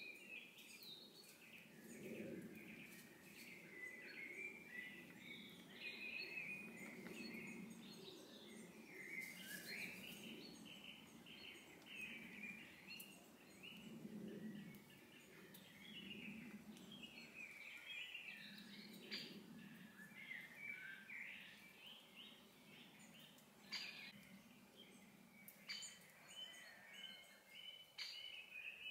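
Woodland songbirds chirping and warbling faintly and continually, over a low hum that comes and goes. A few short clicks are scattered through it, fitting fox cubs scrabbling in dry leaves.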